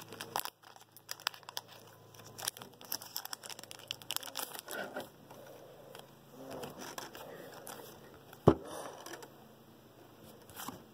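Foil Pokémon trading-card booster pack crinkling while the cards are slid out of it and handled, a run of small irregular crackles and clicks. One sharp tap, the loudest sound, comes about eight seconds in.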